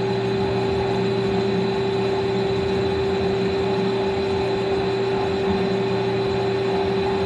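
Metal lathe running under a light finishing cut on a steel bushing: a steady spindle and gear hum with a thin, high, steady tone over it.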